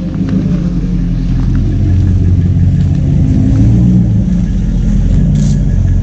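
A truck engine running close by with a deep, steady rumble, growing louder over the first couple of seconds and then holding, with small shifts in pitch.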